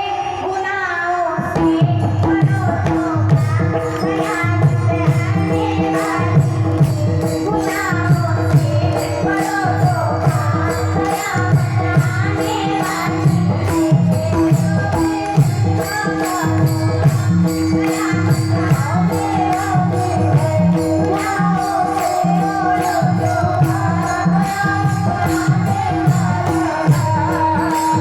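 Pakhawaj drumming: deep bass strokes in a fast, steady rhythm under a held drone and a wavering melody line, with jingling metal percussion keeping time.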